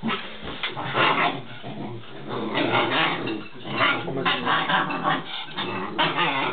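Two Alaskan malamute puppies play-fighting, growling and whining in short, irregular bursts.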